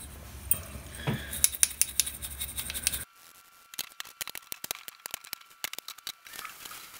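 Brass wire brush scrubbing the dirty aluminium body of a small two-stroke moped carburetor: a quick run of scratchy strokes and small metallic clicks. A background hum cuts off abruptly about three seconds in, and then the light clicks of small metal parts being handled continue.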